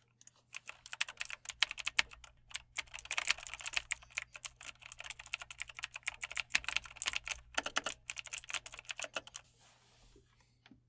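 Fast typing on a computer keyboard, a dense run of key clicks that thins out to a few scattered keystrokes near the end.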